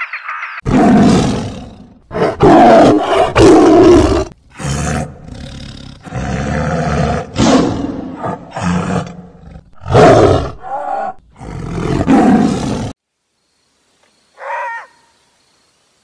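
Tiger roaring and growling, a series of loud, rough roars with short gaps that cuts off abruptly; near the end a single brief pitched call.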